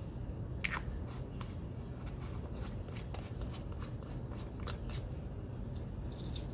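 Small jewelry findings and their containers being handled on a work table: a run of light clicks and taps, with a short rustle near the end.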